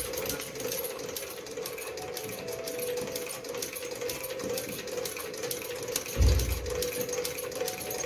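Shoe-repair arm sewing machine stitching a leather boot, running steadily with a rapid, even stitching rhythm. A loud low thump comes about six seconds in.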